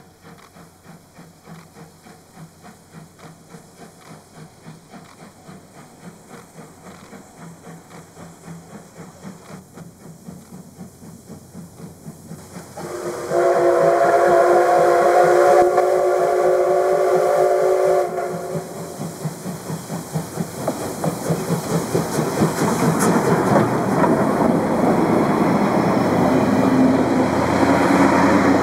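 JR East C57 steam locomotive pulling away under power, its exhaust chuffing in an even rhythm that grows steadily louder. About halfway through, its steam whistle sounds one long blast of several notes at once, lasting about five seconds. The chuffing then comes in loud with the rattle of the train.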